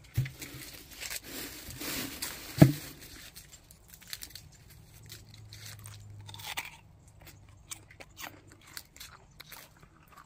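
Close-up crunching and chewing of a bite of crisp, ripe persimmon, with one sharp, loud crunch about two and a half seconds in.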